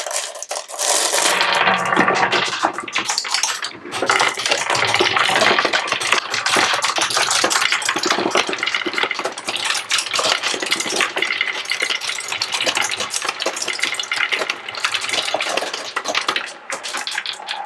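Dozens of glass marbles tipped from a plastic tub onto a wooden marble run, rolling and clattering down its tracks, holes and ramps in a dense, continuous stream of clicks.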